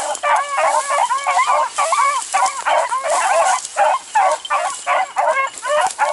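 A pack of beagles baying continuously in full cry, many voices overlapping, as they run a rabbit's scent trail.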